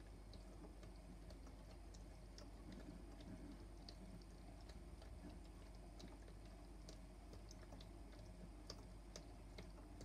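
Toy washing machine running its wash cycle, very faint: a low steady motor hum with light, irregular clicks and ticks from the turning drum.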